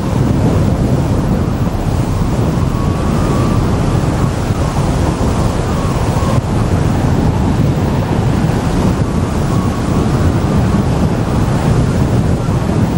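Steady rush of airflow buffeting the microphone of a camera mounted on a hang glider's wing in flight.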